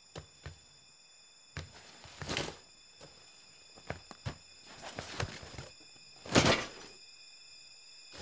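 A person rummaging through belongings by hand: light knocks and clicks and bursts of rustling, with the loudest thump and rustle about six and a half seconds in.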